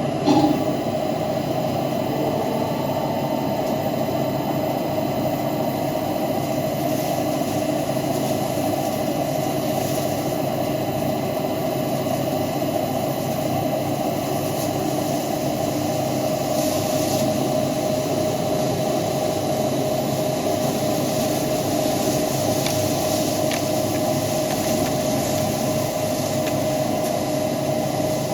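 CNC lathe running steadily while machining a pinion: an even machine hum with a held tone, and a brief sharp sound just after the start.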